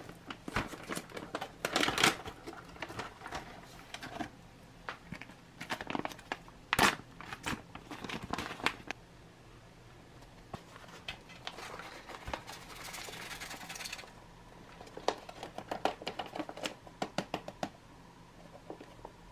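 Foil ration pouch crinkling and crackling in the hands as it is handled and opened, with sharp crinkles and clicks. Near the end comes a short steady hiss, then a run of small clicks as the buckwheat, peas and beef are emptied onto a stainless steel tray.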